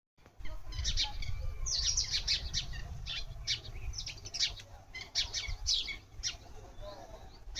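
Small birds chirping: many short, sharp chirps in quick succession, several a second, over a steady low rumble.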